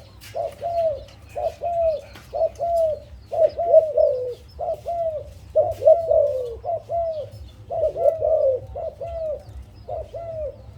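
Zebra dove cooing: a long run of short, soft arched notes, two or three a second, coming in loose groups.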